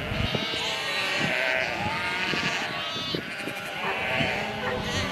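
A flock of sheep bleating, many overlapping calls one after another.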